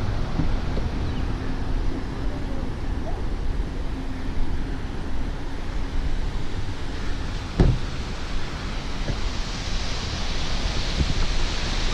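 Steady rushing roar of a waterfall plunging into a gorge, with wind buffeting the microphone. A single thump sounds about two-thirds of the way through.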